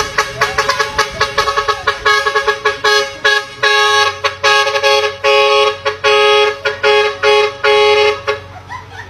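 Multi-tone musical vehicle horns (busina / telolet-style air horns) playing a rhythmic horn tune. Quick short toots come first, then from about three and a half seconds in, longer chord blasts about twice a second, which stop shortly before the end.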